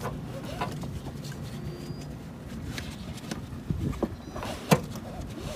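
Seat belt webbing being fed through a car seat's belt path: scattered rustles and light plastic knocks over a low rumble, with one sharp click near the end.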